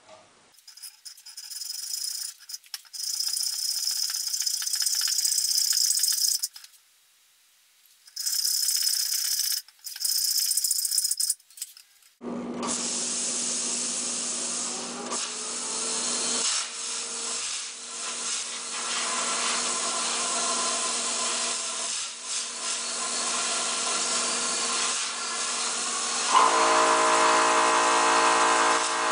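A hacksaw rasps through a steel trolley roller in long bouts of strokes. After a cut, a plasma cutter hisses and hums steadily, and near the end its arc strikes, the sound turning louder and buzzier as it cuts the roller.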